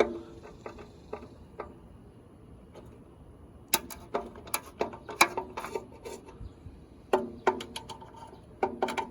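Screwdriver working the metal screws that hold the back mirror inside a railroad crossing light housing: irregular runs of sharp metallic clicks and clinks, each with a short ring. There is a quieter gap about two seconds in, then busier runs.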